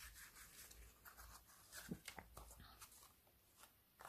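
Faint rustling and a few light clicks of thin card cut-out figures being handled, their split-pin jointed limbs being moved.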